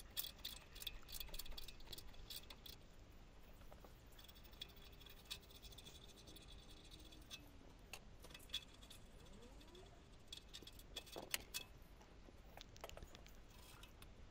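Faint, scattered metallic clicks and ticks of a spanner working the rusty nuts that join the catalytic converter to the exhaust manifold, thickest in the first few seconds, with long near-silent gaps.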